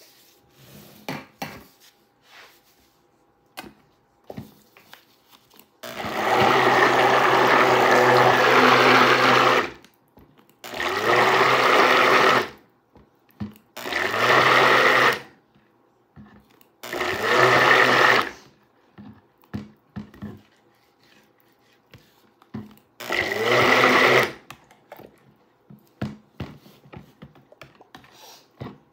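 Stainless stick blender running in a plastic jug of turmeric-tinted soap batter, switched on in five bursts: the first about four seconds, the rest one to two seconds, each starting with a short rising whine as the motor spins up. Light taps and knocks from the blender against the jug come between the bursts.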